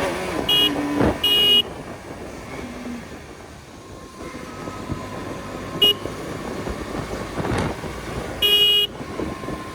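Road traffic heard while riding a motorcycle: vehicle horns honk in short blasts about half a second and a second and a half in, a brief toot near six seconds, and a longer honk about eight and a half seconds in, over steady traffic noise.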